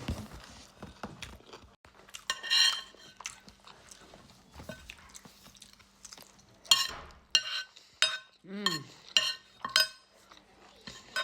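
Cutlery clinking and scraping against a plate while someone eats. There is a cluster of clinks about two and a half seconds in and a quicker run of sharp clinks from about seven to ten seconds in.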